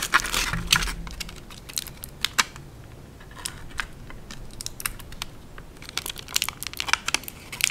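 Thin clear plastic bag crinkling as hands pull it open and work the toy figure out of it: a run of sharp crackles, thickest at the start and again near the end.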